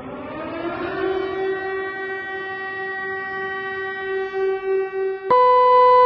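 Civil defence warning siren sounding in a public warning-system test: it winds up in pitch over about a second and a half, then holds a steady wail. About five seconds in it switches abruptly to a higher, louder steady tone.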